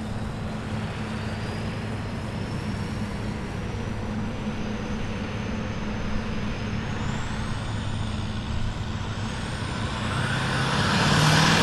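Diesel engine of a Kirovets K-700-series tractor running at the start line with a high turbocharger whine that climbs steadily in pitch. Near the end the engine gets louder as it is throttled up under load, sending black smoke from the exhaust, as the pull begins.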